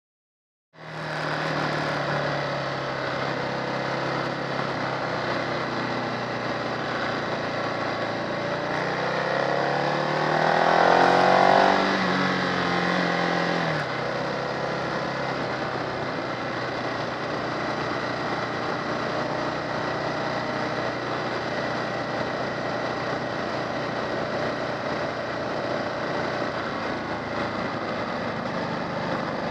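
Motorcycle engine heard from on board while riding, running steadily over a constant rush of wind and road noise. About a third of the way in it revs up with a rising pitch, then drops back abruptly and settles into steady running again.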